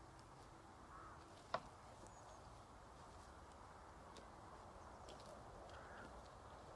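Near silence in the open with two faint distant bird calls, one about a second in and one near the end, and a single sharp click about a second and a half in.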